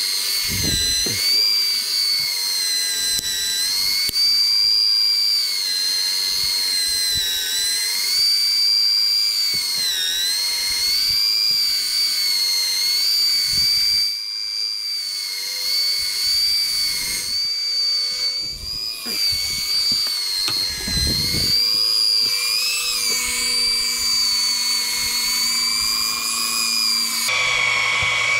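Small electric motor whining steadily, plausibly an electric fishing reel winding in line with a heavy fish on. Its pitch dips briefly now and then as if under load, with a few low knocks, and the sound changes abruptly about a second before the end.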